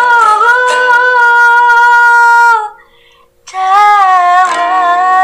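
A woman singing long, sustained notes. One note is held for over two seconds and breaks off; after a brief pause a second, lower note starts with a short waver and is then held steady.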